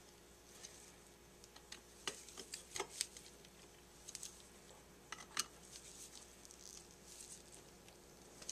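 Scattered faint clicks and light taps of small metal tools and carburetor parts being handled on a workbench, a few seconds apart and irregular.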